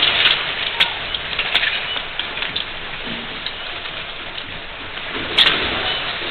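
A steady hissing, pattering noise with scattered clicks and one sharper crack about five seconds in.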